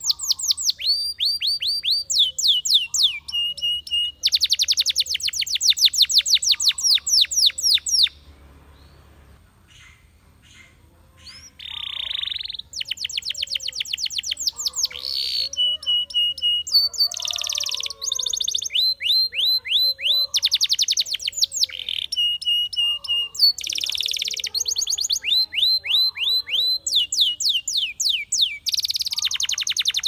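Spanish Timbrado canary singing: long runs of fast, evenly repeated downward-sweeping notes and trills. The song breaks off for a few seconds about eight seconds in, then resumes.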